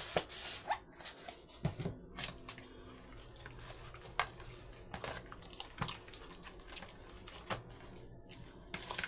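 Scattered clicks, taps and rustles of food and utensils being handled in a kitchen, with a longer rustle at the start.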